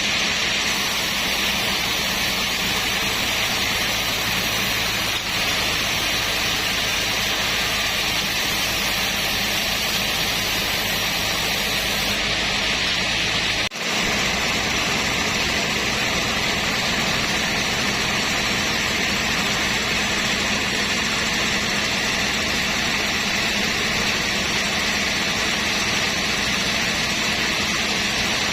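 Sawmill machinery running steadily, a constant hum with a broad hiss over it. It cuts out for an instant about fourteen seconds in and carries on unchanged.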